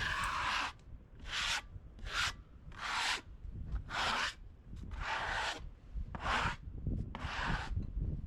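Eight brisk rubbing or brushing strokes, about one a second, each a short dry hiss: something being rubbed or swept over a rough surface, such as sawdust being brushed off a sawn slab.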